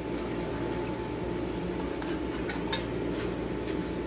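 A few faint clicks and light clinks from a circuit board being handled against an aluminium chassis plate, over a steady background hum with a thin high tone.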